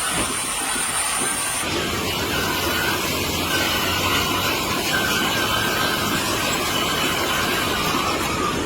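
Dairy milking-parlour machinery running steadily: a continuous hiss and whir over a low hum, with a thin high whine during the first second and a half.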